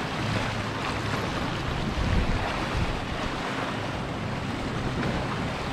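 Ocean surf washing and breaking against shoreline rocks, with wind buffeting the microphone, as a steady rushing noise.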